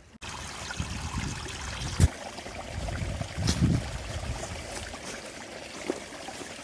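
Steady rush of a small creek running, with irregular low rumbling gusts of wind on the microphone and a sharp knock about two seconds in.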